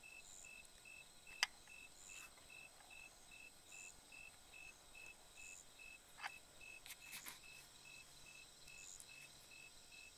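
Faint insect chirping in short, evenly spaced pulses, about three a second, over a quiet night field. A sharp click comes about a second and a half in, and a couple of fainter clicks follow later.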